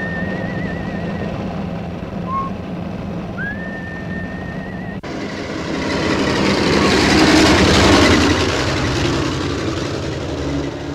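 An old van's engine drones steadily for the first half while a man whistles a few wavering notes over it. About halfway through, the sound changes to the van driving by: engine and road noise swell to a peak and then fade.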